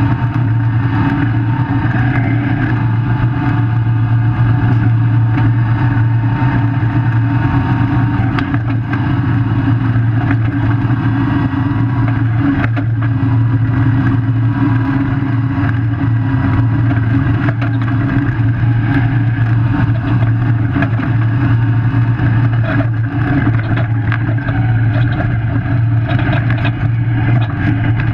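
Running noise heard from under a solid-axle-swapped fourth-generation Toyota 4Runner driving a dirt road at speed in four-wheel drive: steady tyre, drivetrain and wind noise with a constant low drone. Occasional sharp ticks come through.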